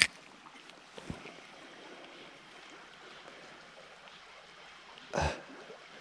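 Faint, steady rushing of river water, with a short louder burst about five seconds in.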